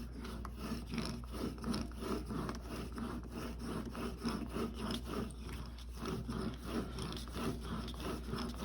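Steel single-bevel broadhead blade drawn over and over in short back strokes across a cardboard strop, a quick run of dry rubbing scrapes used to polish the edge.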